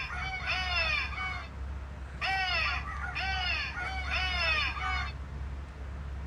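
Battery-powered motion-sensor toy switched on and playing a recorded squawking bird call: a run of repeated, identical calls, a short pause, then a longer run.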